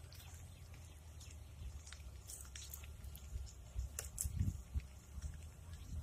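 A small tilapia being landed on a fishing rod and line: a few light clicks and taps, most of them about two to four seconds in, over a low rumble.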